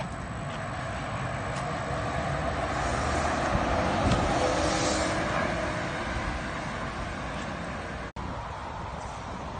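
Neoplan electric trolleybus passing close by: tyre and road noise that grows louder to a peak about four seconds in, then fades away. The sound drops out for a split second just after eight seconds.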